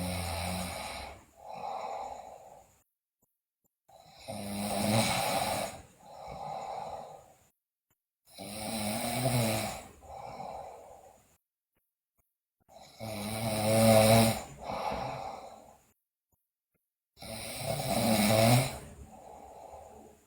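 A sleeping girl snoring loudly, five breaths about every four and a half seconds. Each breath is a loud snore followed by a shorter, quieter second sound, with silence between breaths.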